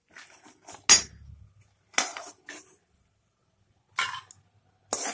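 Metal spoon scraping and clinking against a kadai while fried bori are lifted out of hot mustard oil: a series of separate knocks and scrapes, the loudest about a second in.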